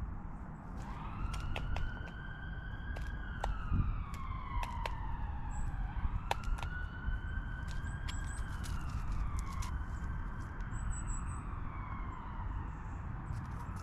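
Emergency vehicle siren wailing. It starts about a second in and repeats in slow cycles, each rising quickly, holding and then sliding down, about every four seconds. Scattered sharp clicks and a few faint high bird chirps sit over it.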